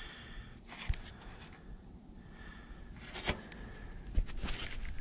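Quiet handling sounds: a few light clicks and rustles, over a faint steady background.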